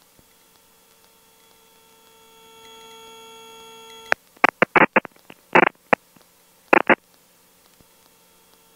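Steady electrical hum with several faint pitched tones on the helicopter's headset intercom audio. It grows louder about two and a half seconds in and cuts off suddenly near four seconds. A string of short, sharp bursts of noise follows over the next three seconds.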